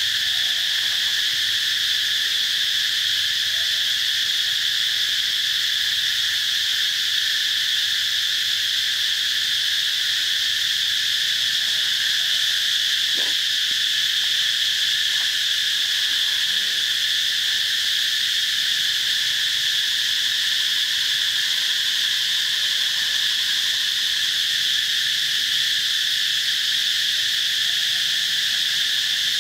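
A steady, unbroken high-pitched chorus of insects shrilling, with no breaks or changes in level.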